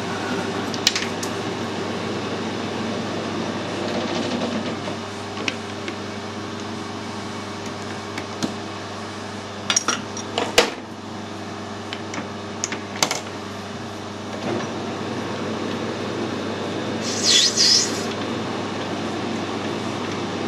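Metal lathe turning a small brass part, a steady machine hum. Partway through come several sharp metallic clicks and clinks while the spindle is stopped. A short hissing scrape comes about three-quarters of the way through.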